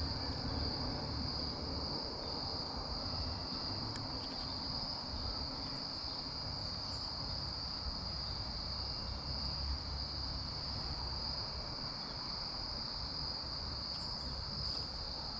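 A steady, unbroken high-pitched insect chorus, with a soft even rushing underneath.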